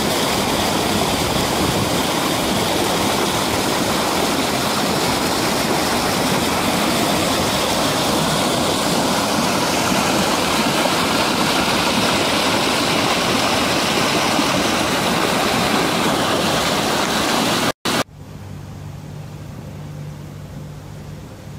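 Muddy floodwater rushing down a wadi channel in spate, a loud steady rush of water. About 18 seconds in it cuts off abruptly, leaving a much quieter hiss with a low steady hum.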